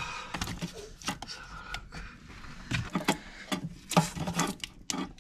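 Hands working the plastic wiring plugs and cables under a van seat: a string of irregular clicks, knocks and rubbing as a connector is pulled off.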